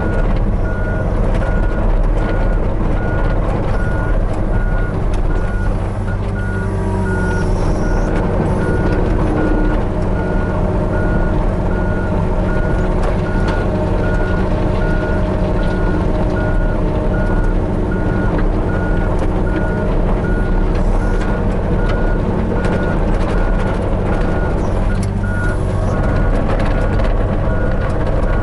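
Hitachi 35U mini excavator's diesel engine running steadily while the machine's alarm beeps over and over at a high, even pitch, with scattered clatters of stone.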